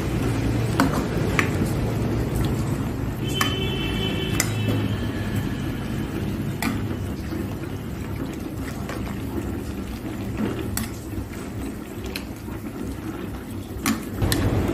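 Metal ladle and tongs clinking and knocking against an aluminium pot as water spinach is stirred into simmering soup, with a brief metallic ring about three and a half seconds in. A steady low rumble runs underneath.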